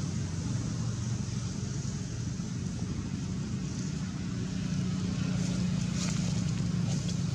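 Steady low rumble with a faint hiss over it, unchanging throughout.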